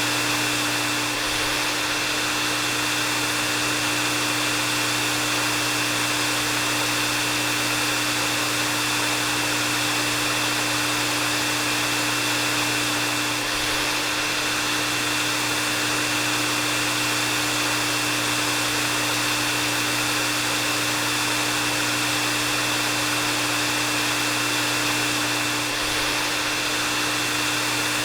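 Hair dryer running steadily: a continuous rush of blown air with a steady low motor hum and a thin high whine. The level dips slightly and briefly about every twelve seconds.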